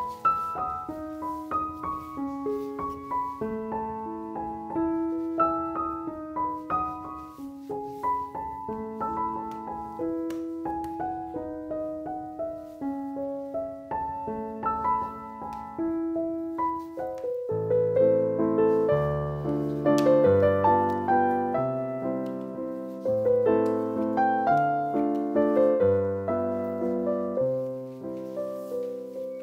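Background piano music: a melody of single notes, joined by lower notes and fuller chords a little past halfway.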